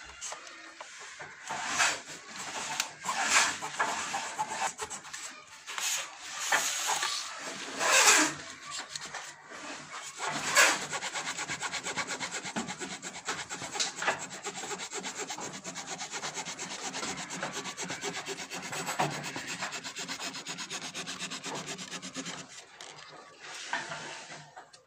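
Hand tool scraping and shaving the wooden braces of a lattice-braced guitar top. It starts with a few separate strokes, then comes a long stretch of fast, even rasping that stops near the end.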